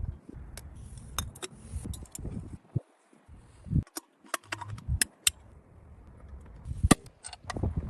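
Metal parts and hand tools clinking and knocking in short, clipped bursts during motorcycle restoration work, with a dozen or so sharp clicks and a few sudden silent gaps.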